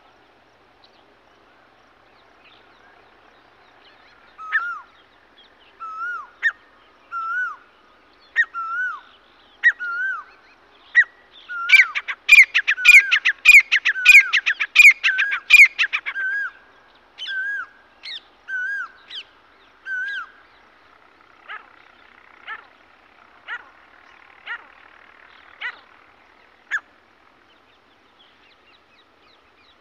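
Grey francolin calling: a series of short repeated call notes that speed up into a fast, loud run of higher notes about twelve seconds in, lasting some four seconds, then slow again and trail off into scattered single notes.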